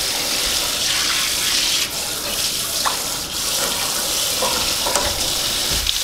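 Water running from a pull-down spring kitchen faucet's sprayer head into a sink basin: a steady hiss of spraying water.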